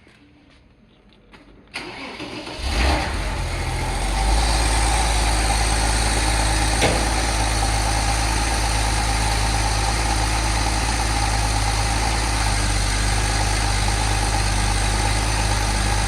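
Porsche 993's air-cooled flat-six, its top end freshly overhauled, being cranked by the starter and catching about three seconds in, then settling into a steady, smooth idle with a low exhaust note.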